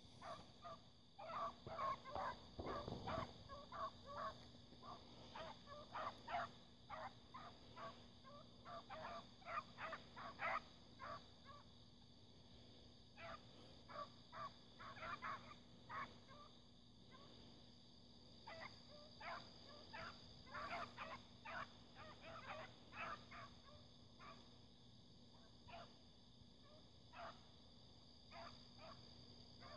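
A pack of hunting hounds, young puppies among them, baying faintly in the distance: many short, overlapping barks coming in bursts with brief lulls, the voices hounds give while running a track.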